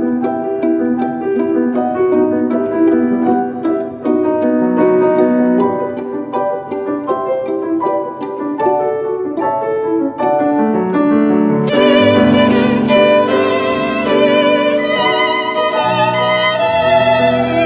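Soundtrack music: a violin melody over a piano accompaniment of steady repeated notes. About twelve seconds in, the music swells, with the violin playing fuller, wavering held notes.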